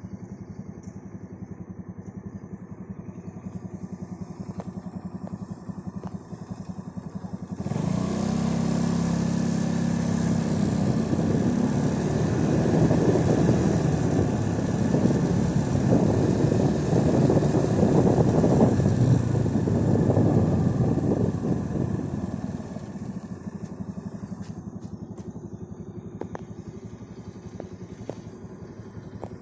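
Motorcycle engine running steadily while riding. About eight seconds in it becomes much louder and rougher, and it settles back to the steady hum around twenty-two seconds.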